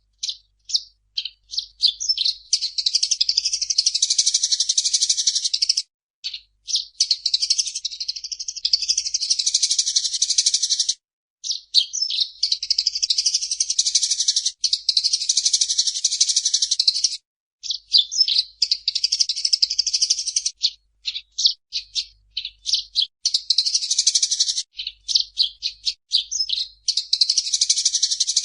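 Eurasian tree sparrow chattering: a few separate chirps build into long, rapid, dense chatter lasting several seconds. The bout stops abruptly and starts again about every six seconds.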